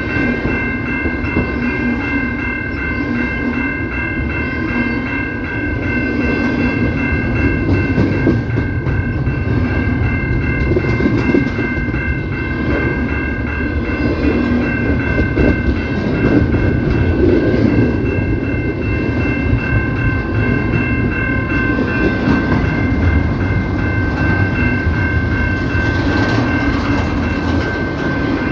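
CPKC train rolling past with a continuous rumble and clatter of wheels on the rails. A steady high-pitched tone rides over it without a break.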